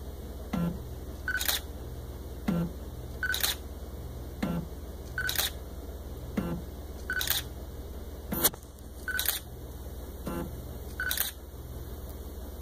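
Digital SLR camera firing automatically about every two seconds, six shots: each a short autofocus beep followed at once by the shutter click. A soft low knock comes between shots, over a steady low hum.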